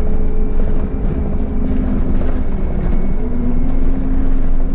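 Solaris Urbino 15 city bus under way, heard from the driver's cab: a continuous engine and road rumble. Over it runs a whining drivetrain tone that drops in pitch partway through and climbs again near the end as the bus picks up speed.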